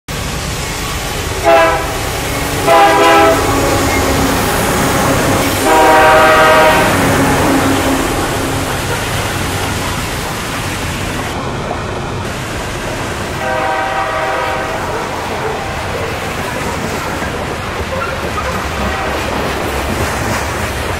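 CSX diesel freight locomotive passing close by and sounding its air horn: two short blasts, then a long one, and another long blast a few seconds later as the engine moves away. Throughout, loaded grain hopper cars rumble and clatter over the rail joints as the train rolls past.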